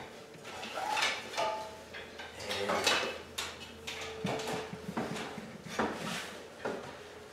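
Irregular metallic clicks, knocks and rattles as a deer carcass is hoisted on a truck strap slung from an aluminium ladder, the ladder shifting and knocking under the load.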